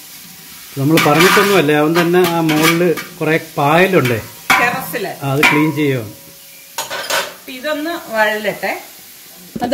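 Onions frying and sizzling in oil and ghee in a tall copper biryani pot as a metal spatula stirs them, with sharp clinks against the pot. A voice, louder than the cooking, talks in stretches over it.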